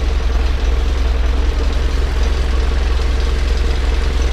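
Forklift engine running steadily at idle close by, under light load as the forks are raised.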